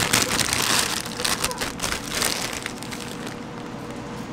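Crinkling of a foil bag of Bluebird potato chips, with chips crackling as they are tipped out onto bread. The crackles are dense for about the first two seconds, then die down to a quieter rustle.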